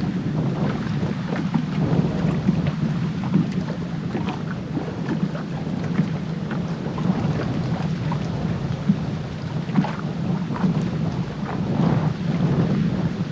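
Strong wind buffeting the microphone, heavily processed by wind-noise reduction into a steady low noise with scattered crackles.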